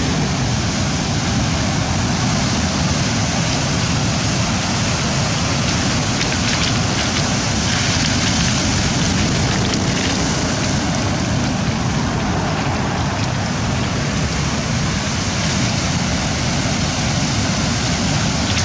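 Steady, unbroken rush of rough surf breaking on the shore, mixed with wind on the microphone.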